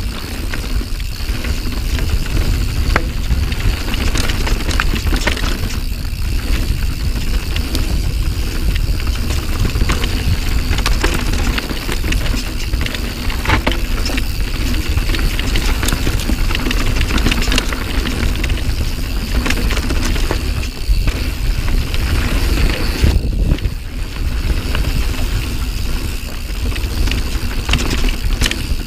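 Mountain bike, a Santa Cruz Nomad full-suspension bike, riding fast down dirt singletrack: tyres on dirt, the bike rattling with frequent knocks over roots and bumps, and wind buffeting the camera microphone with a heavy rumble.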